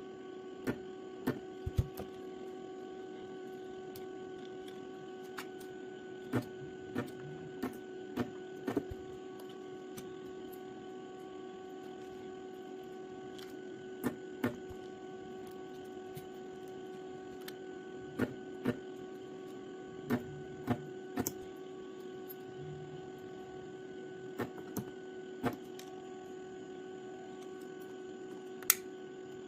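Steady electrical mains hum, with short sharp clicks and light taps scattered irregularly over it, about two dozen in all.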